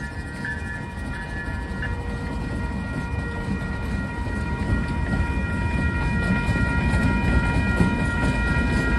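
Several Norfolk Southern diesel locomotives running light, with a low engine rumble and wheels clicking over the rails, growing steadily louder as they pass. Steady high tones run above the rumble.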